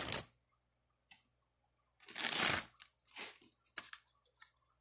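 Packaging rustling and crinkling as a drone is handled in its styrofoam box and plastic wrap. One loud rustle comes about two seconds in, followed by a few shorter, softer ones.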